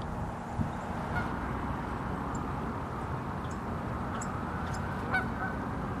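Geese honking a few times, short calls about a second in and again near the end, over a steady low background rumble.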